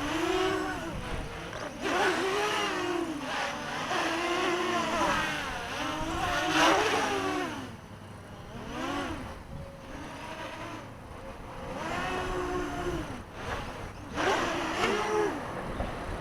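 Mini quadcopter's brushless motors and propellers whining in flight, the pitch swinging up and down about a dozen times as the throttle is worked.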